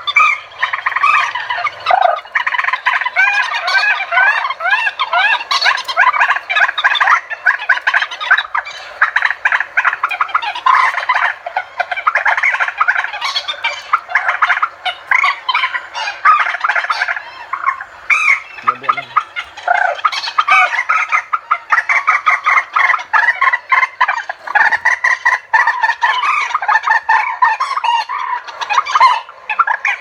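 A recorded bird-lure track of many overlapping bird calls, played loudly through horn loudspeakers driven by amplifiers. It is a dense, continuous chorus of quick, repeated chirping calls.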